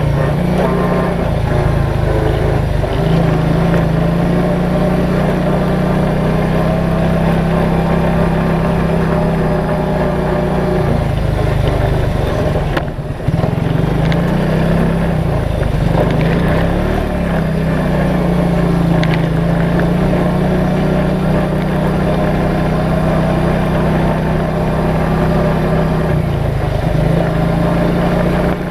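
ATV engine running steadily under way. About halfway through the revs drop off briefly, then come back up, wavering a little before settling.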